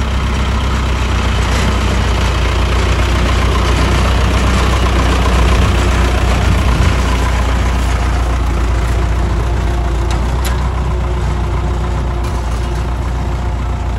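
Sonalika 60 hp tractor's diesel engine running steadily under load while pulling a disc ridger through wet soil, growing slowly fainter in the last few seconds.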